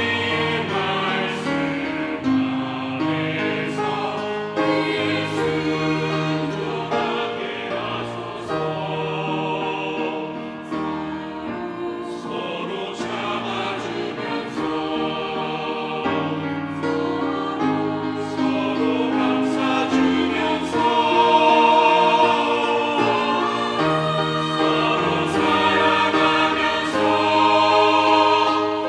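Church choir singing a hymn in held chords, swelling louder in the last several seconds.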